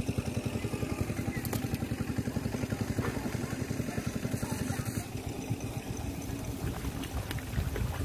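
An engine running steadily, a fast even throb.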